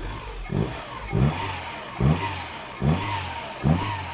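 A freshly rebuilt Opel car engine, its timing just corrected, being blipped on the throttle about five times in a row, roughly once a second. Each blip rises quickly in pitch and falls back to idle.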